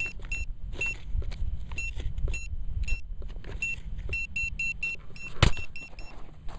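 Handheld metal-detecting pinpointer beeping in short, high, same-pitched tones, irregular and at times in quick runs of several, as it is worked around a dig hole. A sharp knock a little over five seconds in is the loudest sound, with a low rumble underneath throughout.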